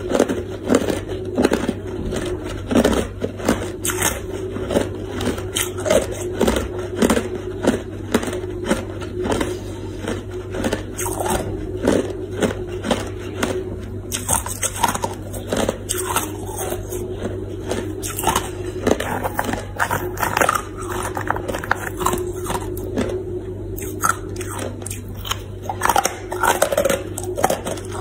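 Hard ice being bitten and chewed close to the microphone: a continuous run of sharp crunches, about one or two a second, over a faint steady low hum.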